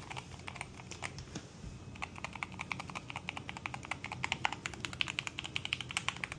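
Typing on a SteelSeries Apex Pro keyboard with OmniPoint 3.0 switches: key clacks, sparse at first, then a fast, continuous run of keystrokes from about two seconds in.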